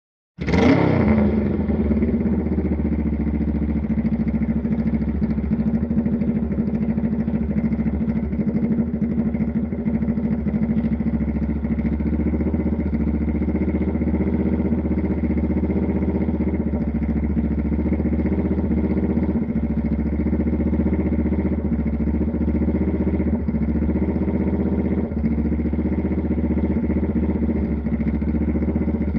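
Motorcycle engine catching about half a second in with a quick rev, then idling steadily.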